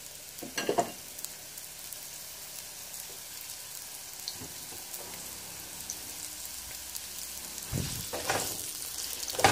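Sliced onions sizzling steadily in hot oil in a nonstick frying pan as they are being browned. There is a brief clatter about half a second in, and near the end a spatula stirs them.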